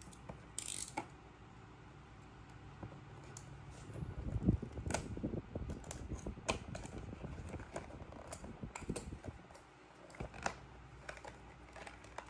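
A small cardboard blind box is handled and its plastic wrap opened: scattered clicks, taps and rustles. A denser, louder stretch of rubbing and knocks comes about four to six seconds in.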